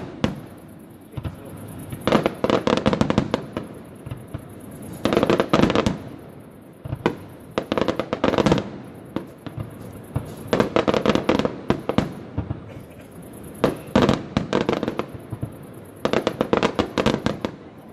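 Aerial fireworks display: about six volleys of rapid, crackling shell reports, each lasting a second or two, with short lulls between.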